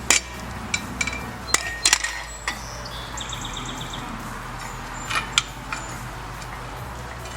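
Short pieces of metal pipe handled and set down, giving a run of sharp clicks and clinks and one brief metallic ring about three seconds in, over a steady low hum.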